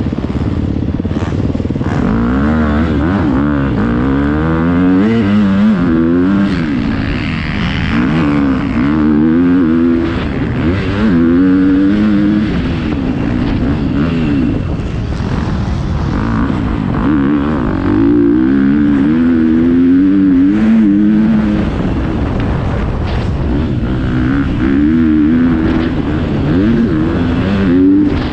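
Dirt bike engine heard from on board while riding a motocross track, the revs climbing and dropping again and again as the rider accelerates, shifts and rolls off the throttle.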